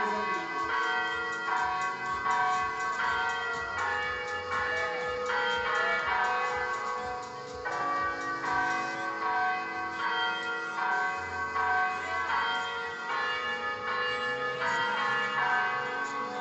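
Electronic church bells sounding through loudspeakers: a continuous succession of bell strokes at several pitches, about two a second, each ringing on into the next.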